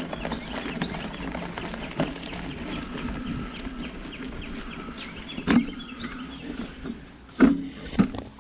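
Footsteps with a steady run of small crackles and clicks underfoot, and three heavier thumps in the second half.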